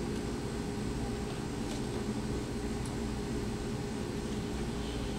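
Steady low background hum with no speech, such as ventilation or machinery noise in a quiet room; a couple of faint ticks.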